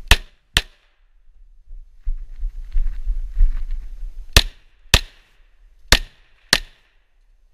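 Semi-automatic pistol fired in three double taps, six shots in all, the two shots of each pair about half a second apart. A low rustle and rumble comes between the first and second pairs.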